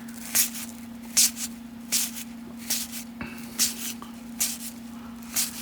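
Baseball cards being slid off a pack stack one at a time, each card giving a short papery swish, about seven in a row a little under a second apart, over a steady low electrical hum.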